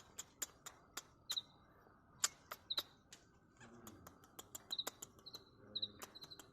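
Small birds chirping: short, sharp chips at irregular intervals, mixed with brief high whistled notes.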